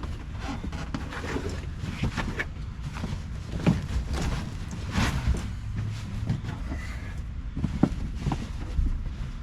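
Scattered knocks, clicks and scrapes of parts being handled and pulled loose inside a stripped truck cab, over a steady low rumble.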